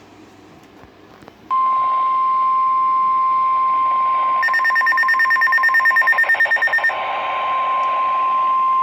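NOAA Weather Radio warning alarm tone: a single steady tone of about 1050 Hz that starts about a second and a half in and holds for about seven seconds. Midway, a higher, rapid beeping overlaps it for a couple of seconds.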